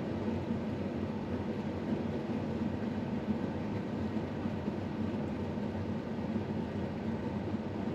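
A vehicle engine running steadily: a constant low hum with a hiss over it, never changing in pitch or level.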